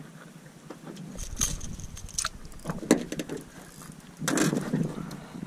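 Handling noises as a caught smallmouth bass is unhooked in a boat: scattered clicks and knocks, a sharp knock about three seconds in, and a short burst of rustling a little after four seconds, over a low wind rumble on the microphone.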